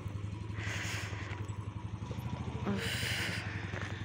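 Motorcycle engine idling with a steady, fast low throb. Two brief hissing noises come over it, about a second in and about three seconds in.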